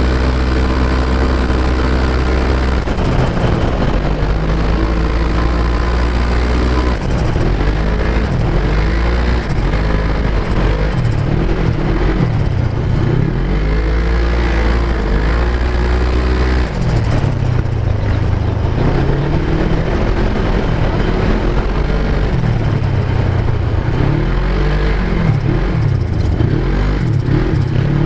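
Off-road vehicle engine under hard throttle, loud: it runs steadily for the first few seconds, then revs up and down again and again as the throttle is worked.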